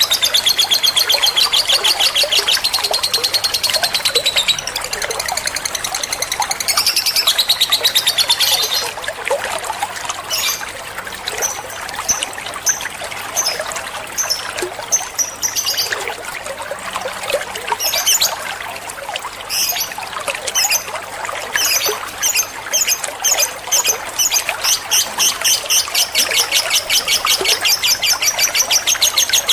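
Lovebird chattering: long runs of rapid, high chirps. After about nine seconds they loosen into a broken series of separate chirps, then turn dense and rapid again near the end.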